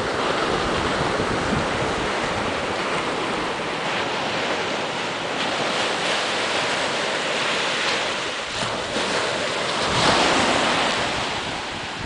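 Atlantic Ocean surf breaking and washing up the sand in a steady rush of foam, swelling louder as a wave comes in about ten seconds in.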